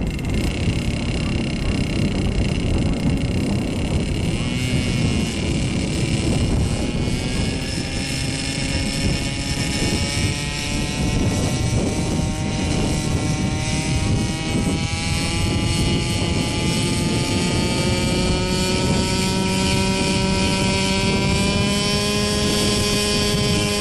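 Gasoline two-stroke engine of a JR Ergo radio-controlled helicopter, fitted with a B&H Hanson exhaust, running as the rotor spools up on the ground. The engine note climbs slowly and steadily in pitch from a few seconds in, over the rush of the spinning blades.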